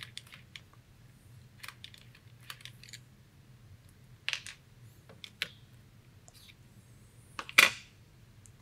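Scattered small clicks and taps of a hand driver working the cheek rest screws out of an FX Wildcat MKIII air rifle, with screws and parts being set down on the tabletop. The loudest is a single sharp clack near the end as the removed cheek rest is laid on the table.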